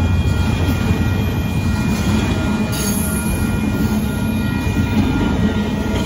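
Double-stack intermodal freight cars rolling past: a steady, loud rumble of steel wheels on rail, with a thin high squeal from the wheels over it.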